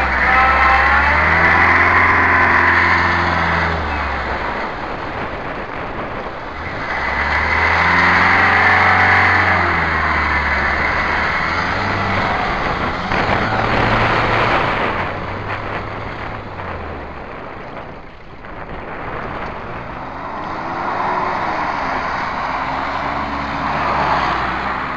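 Toyota Hilux pickup's engine revving hard in three long bursts, each rising and then easing off, as it drives up a steep sand bank, with a loud rushing hiss along with each burst. Near the end a Nissan Mistral's engine revs up and down as it climbs a sand bank.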